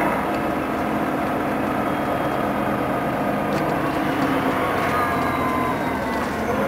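Scania CN113CLL city bus's diesel engine running as the bus drives, heard from inside the cabin: a steady drone with several tones that slowly shift in pitch, and a few faint clicks.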